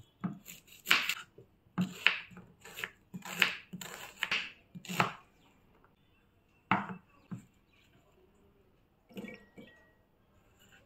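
Kitchen knife chopping a red onion on a wooden cutting board: a quick run of irregular knocks, about three a second, for roughly five seconds, then a few scattered knocks later on.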